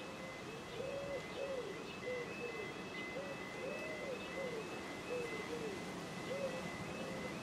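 A pigeon cooing: a string of soft, low, rising-and-falling coos in groups of two or three, with a faint high regular peeping behind it.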